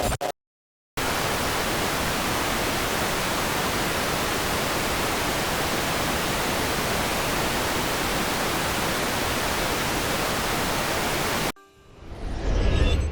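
Glitch-style static sound effect: a steady hiss of noise spread evenly from low to high, lasting about ten seconds and cutting off abruptly. Just before it, a short glitchy blip ends in dead silence, and near the end a new rumbling effect with rising tones starts.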